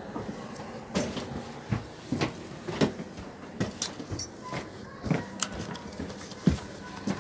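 Footsteps climbing the stairs of a double-deck TGV carriage: irregular thumps and knocks about once a second, over a steady low hum.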